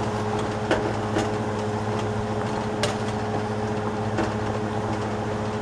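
Butter-and-wine pan sauce sizzling steadily in a grill skillet on an electric burner, with a few light clicks of the pan, over the steady hum of a kitchen fan.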